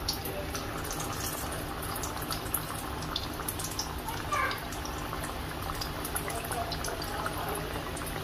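Pakoras deep-frying in hot oil in a steel pan: steady sizzling with many small crackles and pops.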